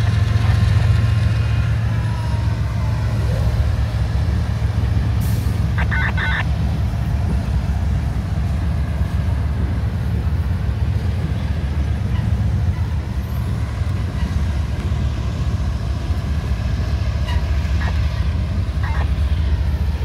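CSX diesel-electric freight locomotives running with a steady low engine rumble, with a brief higher-pitched tone about six seconds in.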